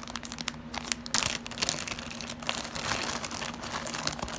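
Packaging crinkling and rustling as it is handled, with many small irregular clicks and crackles.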